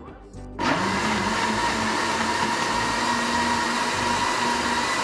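Tefal countertop blender switched on about half a second in, its motor running steadily at high speed with a steady whine as it blends a smoothie of soaked dates, banana and almond milk.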